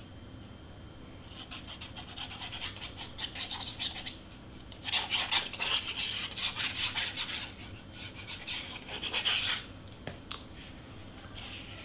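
Cardstock being handled as a long cut strand is pulled up: rapid rasping and crackling of paper in two stretches, the second louder, with a few single ticks near the end.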